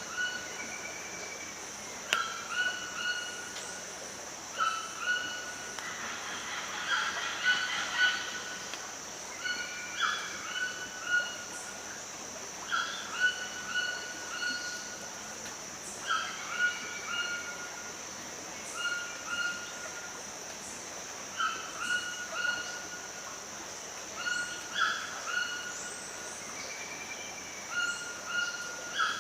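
Forest ambience: short, repeated animal calls, one every second or two, over a steady high-pitched drone.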